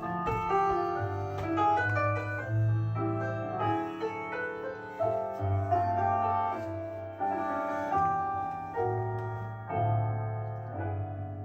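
Recorded piano music playing: a slow solo piano passage of struck chords and melody, with no singing.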